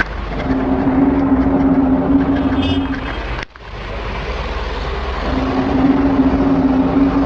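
A low, steady droning tone over a rumbling background, sounding twice for about two and a half seconds each time, with an abrupt break between them.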